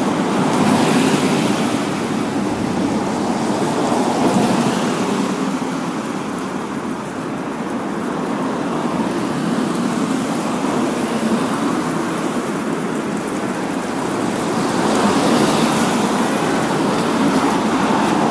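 City street traffic: cars driving past on wet asphalt, their tyre and engine noise swelling and fading as each goes by. The loudest passes come about a second in, at about four seconds, and again near the end.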